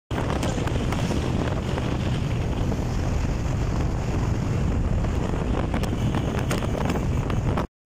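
Wind rushing over the microphone of a Yamaha YBR 125 motorcycle ridden flat out, a steady low rush with the bike's running noise under it. It cuts out for a moment near the end.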